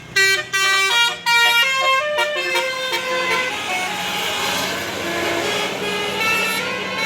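Tourist bus's Basuri telolet horn, a multi-tone air horn, playing a tune of short notes that step from pitch to pitch. From about three seconds in, the notes are held longer and run into one another.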